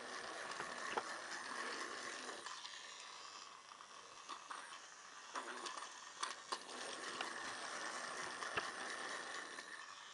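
Battery-powered Trackmaster Kevin toy running along plastic track: a steady motor-and-gearbox whir with rattling clicks, dropping somewhat for a couple of seconds in the middle before getting louder again.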